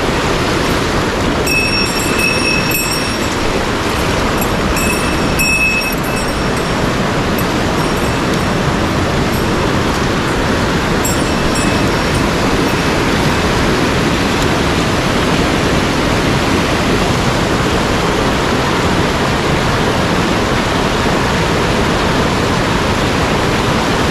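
Headwater mountain stream rushing in a loud, steady wash of water noise, with a few faint high tones heard briefly in the first several seconds.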